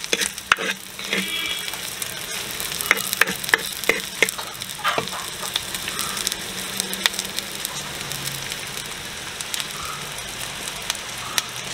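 Sliced onions and green chillies sizzling in hot coconut oil in a clay pot as they are stirred, with sharp clicks and scrapes of the spoon against the pot, more frequent in the first five seconds.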